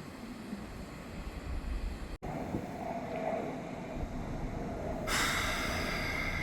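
Electric commuter train on the Nishitetsu Tenjin Ōmuta Line approaching and passing close by: a low rumble, then after a short break about two seconds in, the train's sound builds and turns into a loud rush of wheel and running noise about five seconds in.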